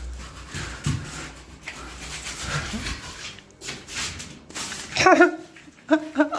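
Hand scraping or sanding on a wall or other surface during renovation: uneven rubbing strokes. About five seconds in, several short, loud pitched vocal sounds cut in.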